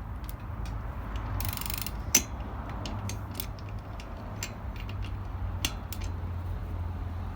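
Ratchet wrench clicking irregularly as a tight bolt on a BMX bike is worked loose, with one sharp, louder snap about two seconds in.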